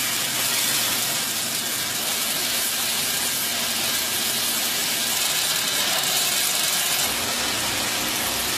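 Coin-minting machinery running: a steady, hissing mechanical din.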